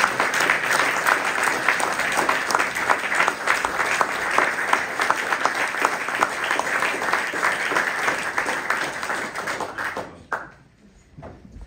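Audience applauding, many hands clapping in a dense, even patter that dies away about ten seconds in.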